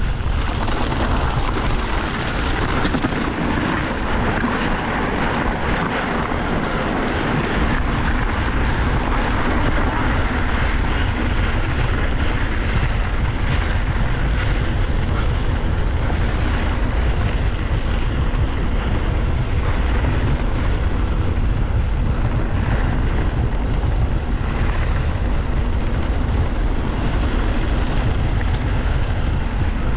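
Steady, loud wind rush over the microphone of a mountain bike ridden flat out down a trail, mixed with the rumble of the bike running over the ground.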